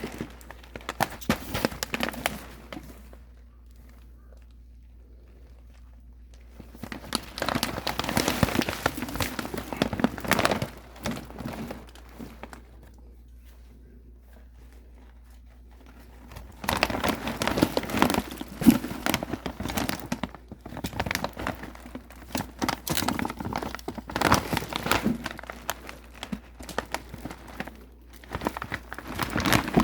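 Parcel packaging being handled and opened, crinkling and rustling in three bouts with two pauses of a few seconds between them.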